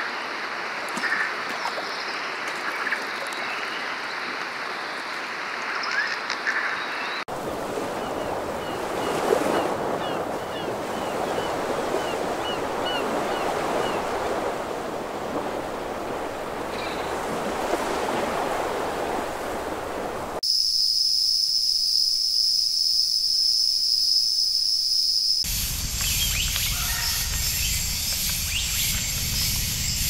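Added nature ambience that changes every several seconds: a rushing wash like surf or wind with scattered bird chirps, and a run of quick high chirps about a third of the way in. A steady high-pitched drone takes over for about five seconds, then a low rumble with bird calls returns near the end.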